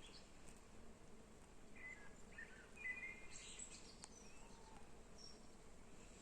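Faint birds chirping over a low steady hiss. The short chirps and trills are busiest in the middle.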